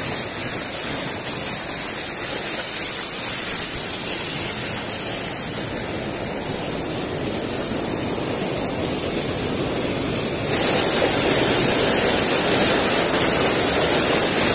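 Mountain stream rushing over rock cascades: a steady noise of falling water that gets louder about ten seconds in.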